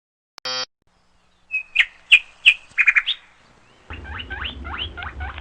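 Edited-in comic sound effects: a short beep, then a bird chirping about seven times, then a rapid run of high squeaky chirps over a low hum.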